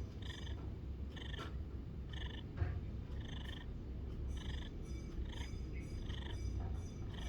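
A cat purring and breathing: a steady low rumble, with a short, higher-pitched sound about once a second as the breaths go in and out.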